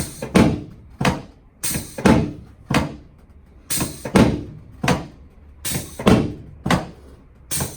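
Chiropractic drop table thudding again and again as its padded sections are thrust down and drop during an adjustment: about a dozen sharp knocks, one every half second to second.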